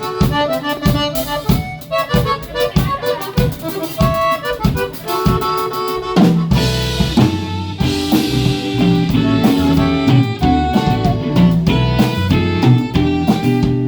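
Live cumbia band playing an instrumental intro: an accordion melody over a drum kit keeping a steady beat. About six seconds in the full band comes in, with bass notes and a cymbal crash.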